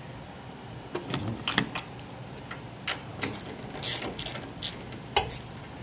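Scattered sharp clicks and light clatter of small fasteners being worked off by hand at the top of a car's front strut tower, about a dozen irregular knocks.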